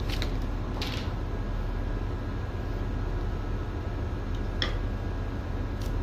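Steady low hum of ship's machinery, with a few short metallic clicks and scrapes as a steel spike is worked between the strands of a steel wire rope during splicing.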